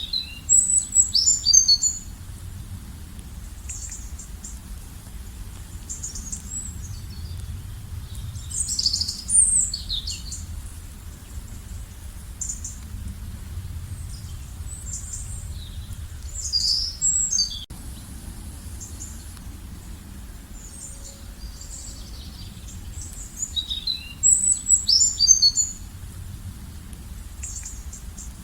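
A songbird singing short, bright, twittering phrases about every eight seconds, four times, over a low steady rumble.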